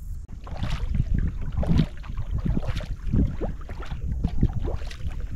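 Kayak paddle strokes: repeated watery splashes and swishes as the blades dip and pull through salt water, coming every half second or so, over a steady low rumble.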